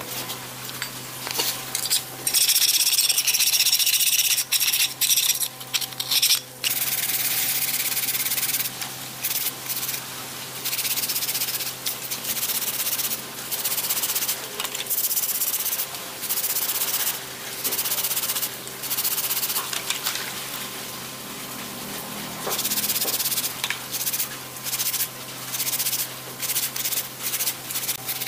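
Stiff plastic-bristled scrub brush scrubbing a metal breast drill part in a basin of soapy water, in spells of quick rubbing strokes with short pauses.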